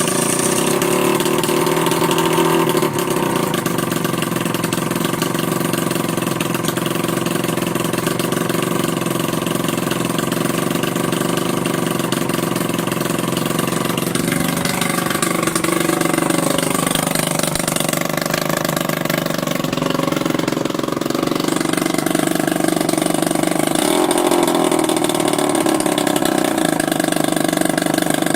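Two-stroke scooter engine fitted with a new expansion chamber, running loudly on its first start after a top-end rebuild, its revs rising and falling for a while around the middle. The owner hears an unusual noise coming from the cylinder or the chamber inlet rather than from the silencer.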